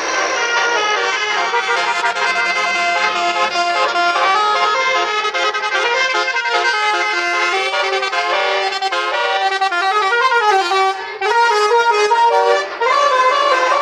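Bus 'telolet' multi-tone air horn playing a tune, a loud, continuous run of stepped notes. It breaks off briefly twice near the end.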